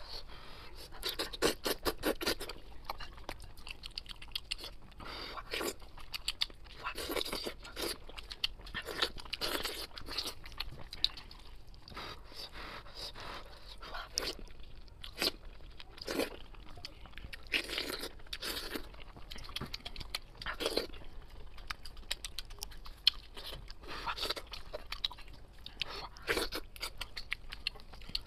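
Close-up eating sounds of sheep's head meat being pulled apart and chewed: wet crunching and crackling in irregular clusters.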